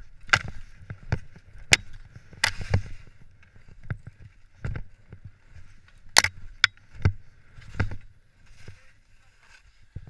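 Skis sliding and scraping over snow through a glade, with irregular sharp knocks and clatters as they turn.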